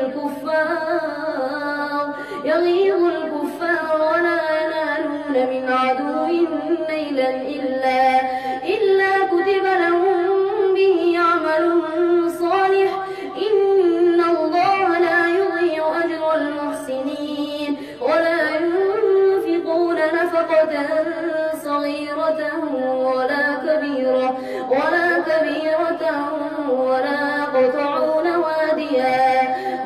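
A boy's high voice reciting the Quran in a melodic, drawn-out chant, long held notes gliding up and down, with short breaths between phrases.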